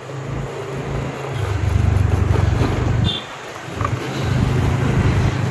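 Motorcycle engine running under way. It pulls harder from about a second in, eases off briefly about three seconds in, then picks up again.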